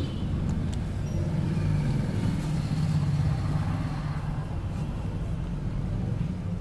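Steady low hum of a running engine, with a few faint light clicks about half a second in.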